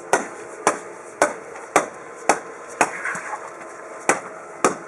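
Hammer blows tapping a Gap Armour expansion-joint filler strip down into a concrete driveway joint. There are about eight sharp strikes at roughly two a second, with a short pause a little past the middle.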